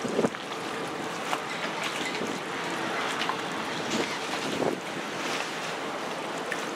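Wind buffeting the microphone over the rush of water against the hull of a ferry under way, with a faint steady drone from its engines underneath.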